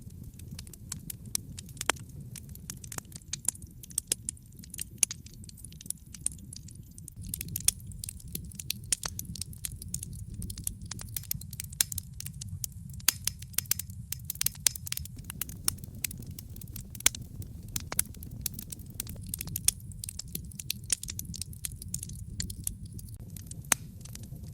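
Wood fire crackling in a fireplace: many irregular sharp pops and snaps over a steady low rumble.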